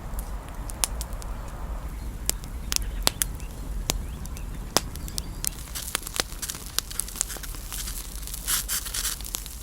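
Freshly lit campfire of dry grass and twigs crackling, with sharp irregular pops and a short patch of hissing about eight and a half seconds in.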